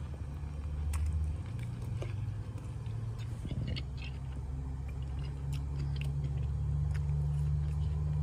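A person chewing a mouthful of flour-tortilla breakfast wrap, with scattered small wet mouth clicks, over a steady low hum that is the loudest sound throughout.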